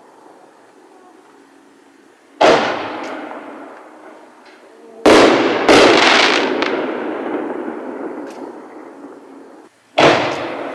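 Aerial firework shells going off: four sharp booms, one about two and a half seconds in, two close together around five seconds in, and one near the end, each trailing a long echo.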